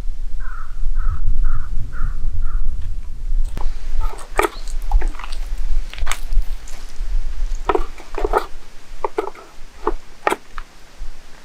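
An animal calling five times in an even series, about two calls a second, followed by scattered sharp clicks and snaps, over a steady low rumble.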